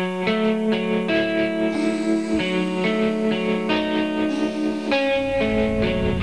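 Background music: guitar chords changing every second or so, with a low bass and beat coming in about five seconds in.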